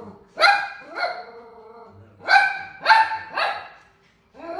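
Toy poodle barking in short, sharp barks at a caribou on the television: two barks near the start, a quick run of three from about two seconds in, and another starting at the very end.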